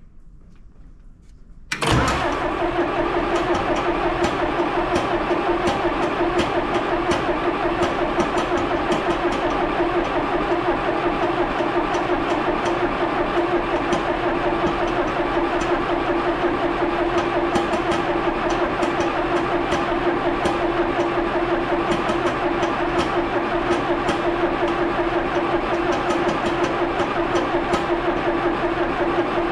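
A John Deere backhoe's diesel engine being cranked over by its starter for a long, steady stretch, starting suddenly about two seconds in, without catching. It won't fire because the injection pump is not getting fuel to the injectors.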